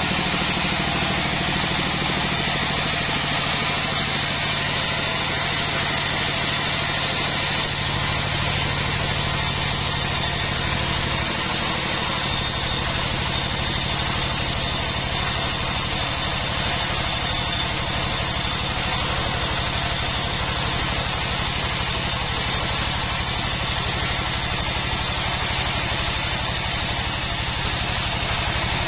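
Band sawmill running steadily while ripping long mahogany timber into boards: a continuous machine hum with a steady high whine from the blade.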